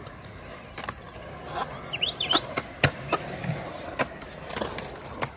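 Skateboard with Independent trucks rolling over a concrete skatepark floor, the wheels giving a steady rolling noise broken by about eight sharp clacks as the board passes over joints and rough patches.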